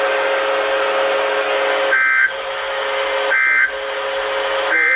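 NOAA Weather Radio end-of-message signal: three short, high-pitched two-tone SAME data bursts about a second and a half apart, closing the weekly test. A steady buzzing hum sounds between them.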